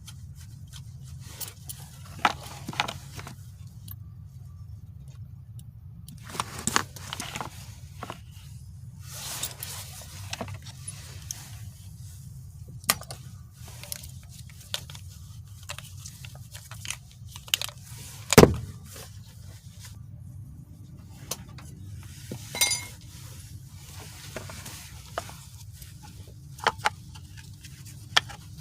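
Scattered metallic clicks, clinks and scrapes of small parts and hand tools being handled as a manual transmission shifter assembly is taken apart, with one louder knock about two-thirds of the way through, over a steady low hum.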